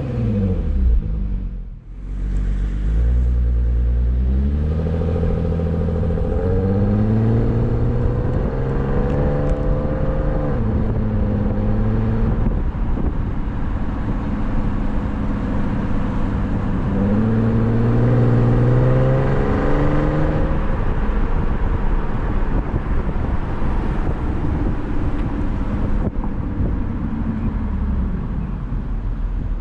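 Porsche Cayenne 957's 3.6-litre VR6 engine through its stock exhaust, driving: twice it climbs in pitch under acceleration and drops back, then settles into a steady drone.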